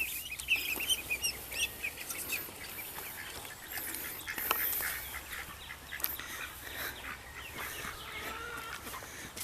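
Ducklings peeping and ducks calling. Many short, high peeps come thickest in the first couple of seconds, with scattered calls after.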